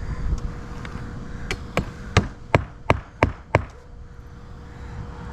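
Hammer driving nails to fasten vinyl siding: seven quick, ringing strikes, about three a second, in the middle of the stretch.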